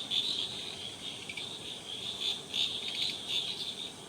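Insect chorus: a faint, high trilling that swells and fades in uneven pulses.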